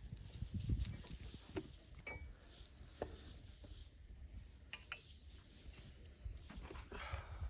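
Faint footsteps and scattered light clicks and clinks, with a low rumble underneath.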